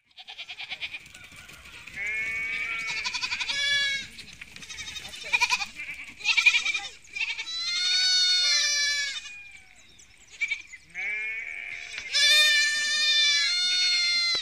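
A flock of sheep bleating: many overlapping calls at different pitches, some long and wavering, coming in several bouts with short lulls between.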